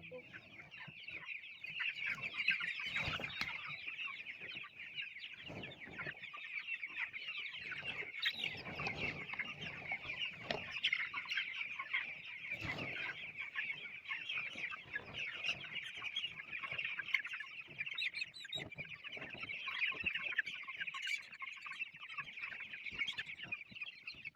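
A large flock of chickens clucking and cheeping all at once in a steady, dense chorus, with occasional soft thumps and rustles among them.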